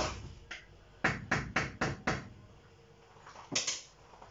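Kitchen utensils and cookware clattering on a counter as they are picked up and handled: a sharp knock, then a quick run of about five knocks and clinks about a second in, and two more near the end.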